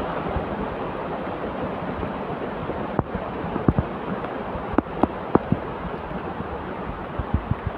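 Muddy rainwater stream in flood, rushing steadily over rocks during heavy rain, with a few sharp taps scattered through the middle and near the end.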